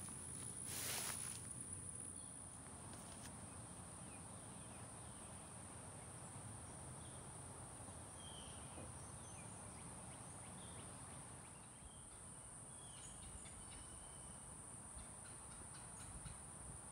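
Faint outdoor meadow ambience: a steady high-pitched whine runs throughout, with a few short bird calls scattered through the second half.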